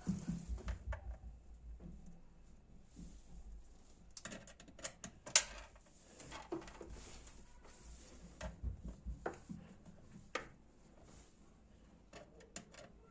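Screws being driven with a screwdriver into the plastic impeller of a top-loading washing machine: scattered small clicks and knocks of metal on plastic, the sharpest about five seconds in, with a few dull low thumps.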